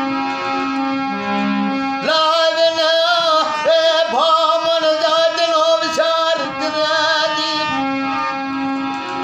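Music from a Gujarati sung story: held keyboard notes, then from about two seconds in a voice sings a long wavering melodic line with vibrato until about six and a half seconds, after which the held keyboard notes carry on alone.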